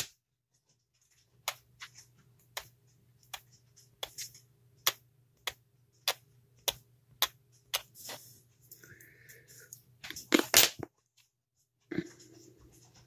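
Small sharp clicks and taps from hands and a sculpting tool working polymer clay, about one or two a second, with a louder burst of handling near the end. A low steady hum runs beneath from about a second in.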